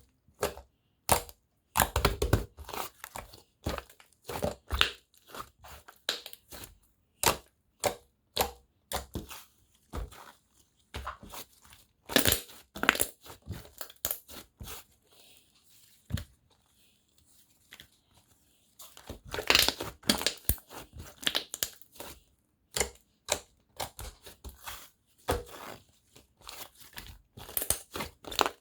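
Hands squeezing, pressing and poking homemade slime, giving irregular sticky clicks, pops and crackles, with a short quiet pause a little past the middle.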